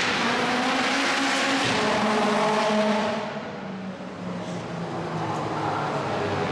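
Porsche 911 Carrera S (993) air-cooled flat-six engine running. It is louder for about the first three seconds, then drops back to a quieter, steady idle.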